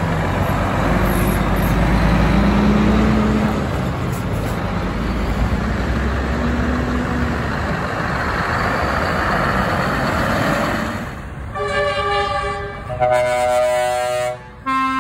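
Diesel engines of heavy lorry tractor units pulling away one after another, their pitch rising and falling as they accelerate. From about 11 seconds in, loud multi-note truck air horns sound in several blasts, the last one held.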